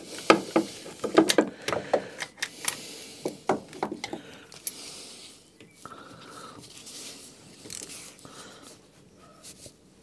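Metal clicks and scrapes of a socket wrench on an extension as the alternator mounting bolts are tightened, about three or four irregular clicks a second for the first four seconds, then softer, quieter tool handling.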